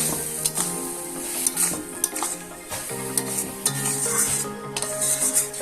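Spatula stirring and scraping greens in a sizzling pan, with sharp clicks as it knocks the pan. The frying hiss comes from mustard paste and water just added to the cooking greens. Background music plays underneath.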